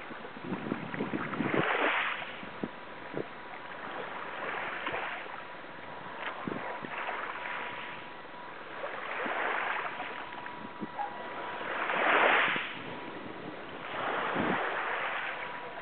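Small sea waves washing in, swelling and fading every two to three seconds, with scattered light knocks and a faint steady high tone in the background.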